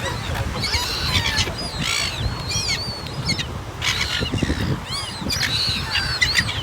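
A flock of birds calling, many short arched calls overlapping in clusters, over a low steady rumble.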